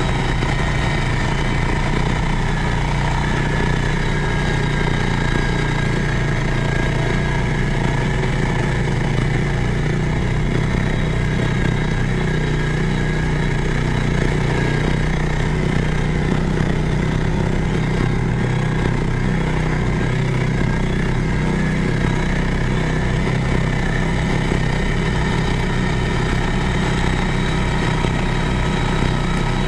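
Snorkeled four-wheeler ATV engine running steadily under load as the machine drives through creek water.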